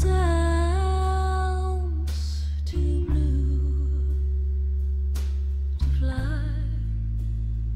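Live band playing a slow country ballad: long, bending lead notes, guitar or hummed voice, over a steady low bass.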